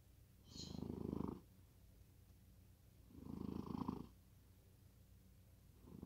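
Sleeping cat snoring: a rough, purr-like snore on each breath, about every two and a half seconds, with quiet in between.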